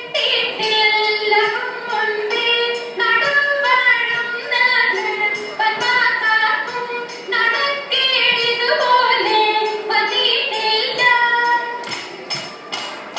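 Girls' voices singing a Margam Kali song, the traditional dance song of Kerala's Saint Thomas Christians, heard through a stage PA. A few sharp claps come in near the end.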